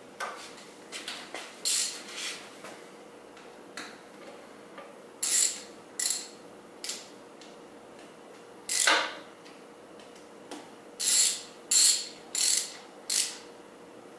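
Hand ratchet wrench clicking in about ten short, irregularly spaced bursts as bolts on a motorcycle's front forks are worked.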